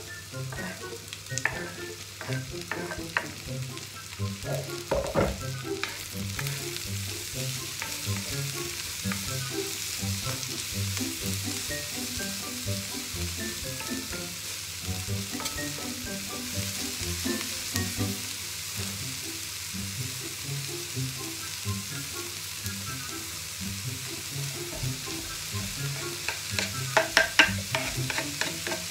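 Sliced onions and leeks sizzling in a hot oiled wok, stirred with a wooden spatula that scrapes and knocks against the pan. Near the end comes a quick run of taps as chopped aromatics are scraped off a wooden chopping board into the wok.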